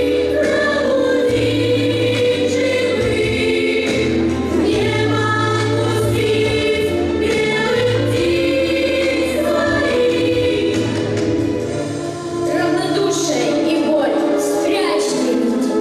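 Music: a group of voices singing in close harmony, choir-like, over held low bass notes, with a brief drop in level about twelve seconds in.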